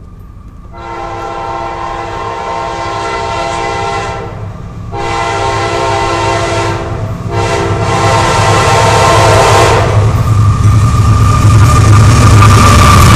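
Diesel freight train's locomotive horn sounding the grade-crossing signal of two long blasts, a short one and a long one, as the train approaches. After the horn stops, the heavy low rumble of the lead locomotives builds and grows loud as they pass close by.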